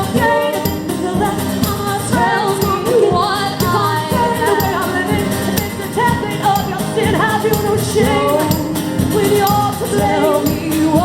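Live band performance: female voices singing a melody without clear words over a steady rhythmic accompaniment.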